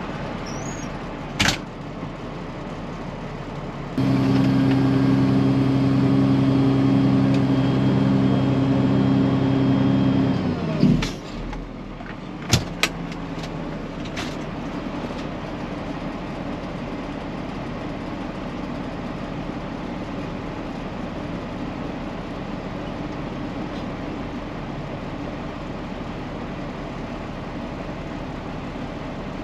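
Cat C15 diesel engine of a Peterbilt 379 idling with a steady low hum. Its speed is then held raised and steady for about six seconds before it drops back to idle. A few sharp clicks come shortly after.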